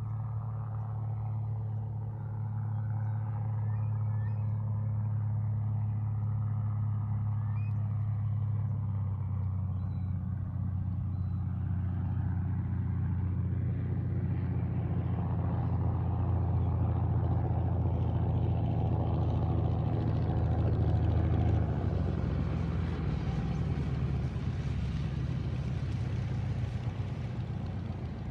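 Pereira Osprey II amphibian's propeller engine running steadily on its landing approach, its note stepping down twice as power comes off. A rushing noise builds through the second half as the plane comes down onto the water.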